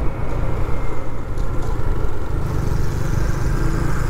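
Motorcycle engine running at road speed with a steady hum and road and wind noise; the engine note grows louder a little over two seconds in.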